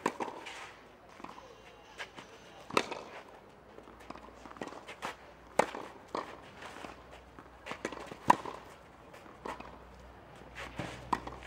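Tennis rally on a clay court: a sharp racket-on-ball pop about every three seconds from the near player, the loudest near the middle, with fainter hits and ball bounces from the far side between them, and footsteps scuffing on the clay.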